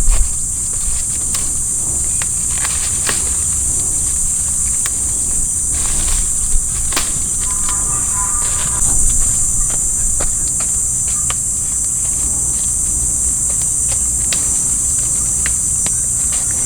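Steady, high-pitched chorus of insects, with scattered light clicks and rustles and a low rumble underneath.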